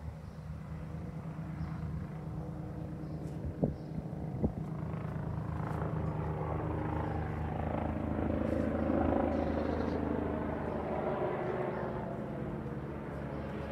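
An aircraft passing overhead: a low engine hum swells to its loudest about nine seconds in, then slowly fades. Two brief knocks come about three and a half and four and a half seconds in.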